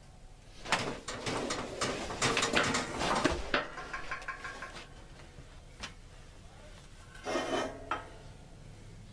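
Steel parts clinking and scraping against the steel plates of a shop press as a T-90 transmission main gear, its rear bearing just pressed on, is handled and lifted out: a busy run of clicks in the first few seconds, a single click later, and a shorter burst of clatter near the end.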